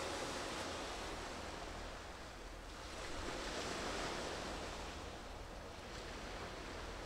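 Sea waves washing, a rush of water that swells and eases twice over a few seconds.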